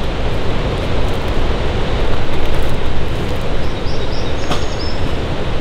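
Steady, loud rushing noise with a heavy low rumble, with a few faint, short, high chirps about four seconds in.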